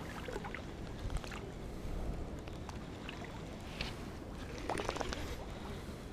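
Low wind rumble on the microphone with light water lapping, broken by scattered small clicks and knocks, with a short flurry of them about five seconds in.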